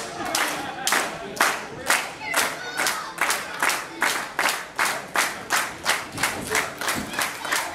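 Wrestling crowd clapping in unison, a steady beat of about two claps a second that quickens to about three a second about halfway through, with a few voices mixed in.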